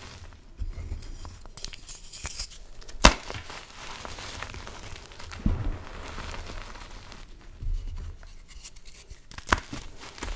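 Hands crushing and crumbling chunks of dyed gym chalk into loose chalk powder: dry crunching and sifting, broken by a sharp crack about three seconds in and another near the end.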